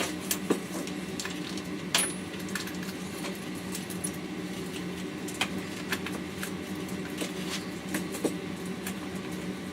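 Scattered light metallic clicks and clinks of a saw chain and bar being handled and fitted, the sharpest about two seconds in, over a steady low hum.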